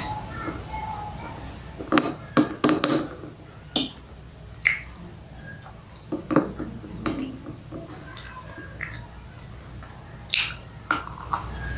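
Slate pencils clinking against each other and the small clay pots as they are picked out, a few sharp clinks close together near the start, then single sharp crunches spaced a second or two apart as bites are snapped off a slate pencil.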